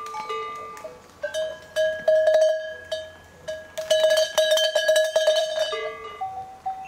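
Metal bells on a herd of goats clanking and ringing as the animals move: several bells at different pitches, with bursts of rapid clanging about two seconds in and again from about four to nearly six seconds.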